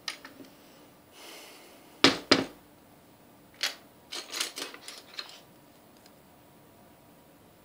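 Handling knocks and clicks from a large glass jar being gripped, tilted and turned on a tabletop: two sharp knocks about two seconds in, then a run of lighter clicks and taps that stops about halfway through.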